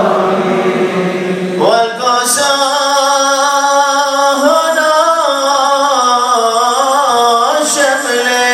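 A male voice chanting the Syriac liturgy in long held notes that move slowly in pitch, with a new phrase sliding upward about two seconds in.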